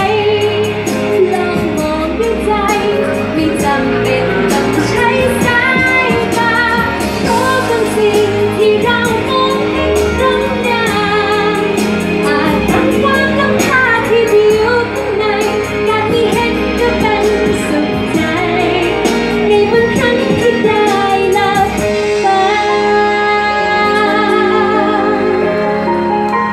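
A woman singing a Thai pop song live into a handheld microphone over instrumental backing, her voice wavering with vibrato on held notes.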